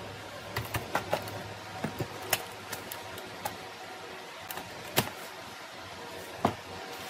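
Irregular light clicks and taps of small computer parts and hand tools being handled during a repair, over a steady low background hum.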